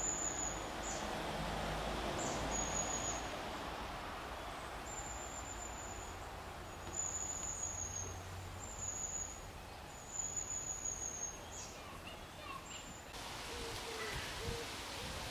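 A bird's thin, high-pitched whistled calls, repeated about eight times with gaps of a second or two, each call half a second to a second long. The calls stop near the end, where a rustling background takes over.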